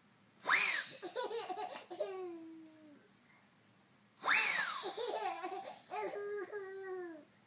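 A baby laughing in two fits, each set off by a sudden high squeal from an older boy that swoops up and then falls in pitch, about half a second and four seconds in.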